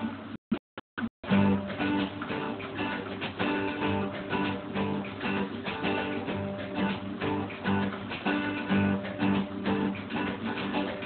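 Acoustic guitar strummed in a steady rhythm, playing chords. The sound drops out completely three or four times for a split second near the start.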